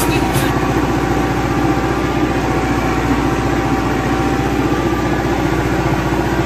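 Massey Ferguson 385 tractor's four-cylinder diesel engine running steadily as the tractor drives along, heard from the driver's seat.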